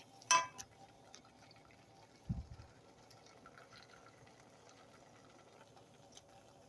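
A short ringing clink, like a metal utensil striking the pot, just after the start, then a dull low thump about two seconds in, with faint wet sounds of cheesy noodles being stirred.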